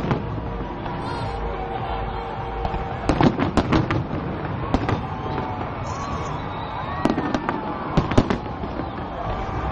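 Fireworks going off: sharp bangs, with a cluster about three seconds in and more around seven and eight seconds.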